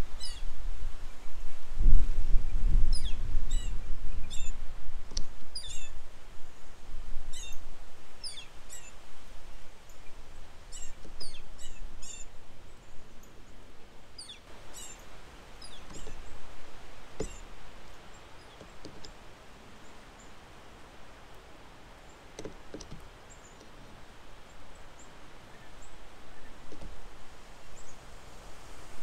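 Small birds chirping: many short, high, falling notes in quick succession for about the first fifteen seconds, then only a few. Wind rumbles on the microphone for a few seconds near the start, and a few soft clicks come later.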